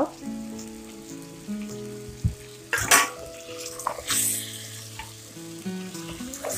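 Chicken pieces sizzling in oil and spices in a pressure cooker as they release their own water, with a spoon stirring and scraping against the pot; the loudest clatter comes about three seconds in. A soft background tune with held notes plays underneath.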